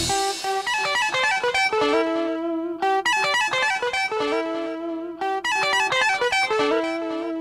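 Solo electric guitar playing a repeating melodic riff of single plucked notes, with no drums or bass.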